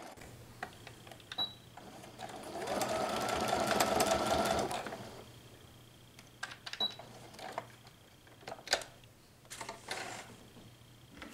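Electric sewing machine stitching a seam through waxed canvas in one run of about three seconds, then stopping. Scattered light clicks and taps follow as the fabric is handled.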